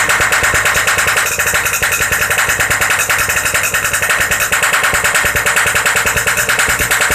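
Yamaha RX-King's stock two-stroke single running steadily through a Boban C-33 aftermarket exhaust, giving a loud, rapid rattling beat.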